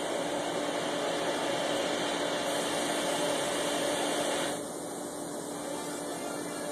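Steady machine hum and hiss with a couple of faint steady tones, which drops slightly in level and loses some of its high hiss about four and a half seconds in.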